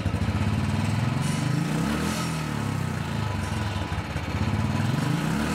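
Royal Enfield single-cylinder engine running at low revs through its stock silencer, a steady exhaust beat whose pitch rises and falls slightly.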